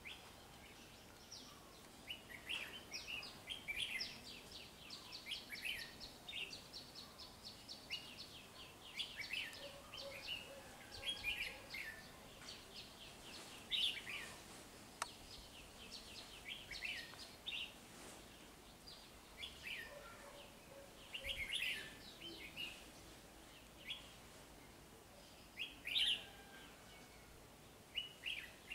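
Red-whiskered bulbuls calling: repeated bursts of short, bright chirps and quick warbled phrases, with the loudest calls around the middle and near the end.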